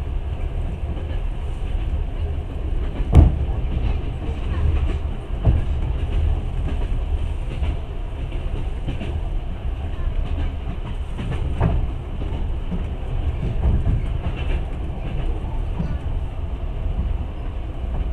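Passenger train running along the track, heard from inside the carriage: a steady low rumble of wheels on rail, with a few sharp knocks of the wheels over rail joints, the loudest about three seconds in.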